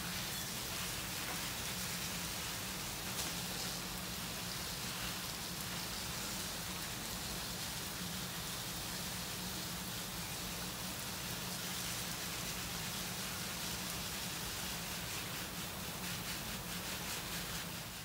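Keeper-run water mist spraying and falling like light rain, a steady hiss with a low steady hum underneath.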